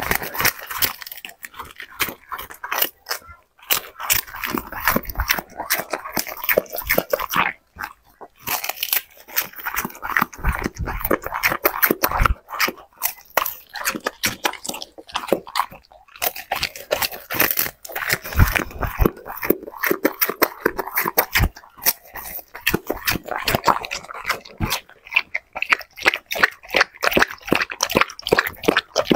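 A dog chewing crisp lettuce leaves: a fast run of wet crunches with short pauses. Near the end it licks and laps sauce from the plate.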